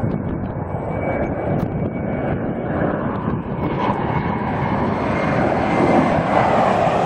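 Airliner's engines running as it passes, a steady roar that grows louder and brighter over the last few seconds as it comes closer.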